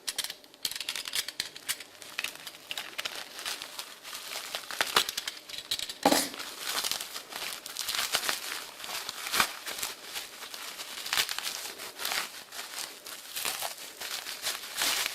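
Packaging being unwrapped by hand: wrapping material crinkling and rustling throughout, with tearing and a few sharper snaps.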